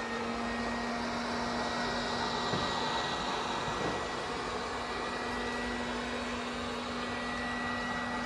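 Xiaomi Mi Robot Vacuum-Mop 2 Pro running its suction fan with a steady hum and a thin high whine, while it locates itself at the start of a vacuum-and-mop run.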